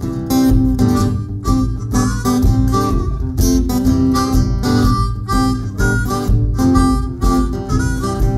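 Harmonica played cupped against a microphone, over steady strumming on an acoustic guitar, about two strums a second.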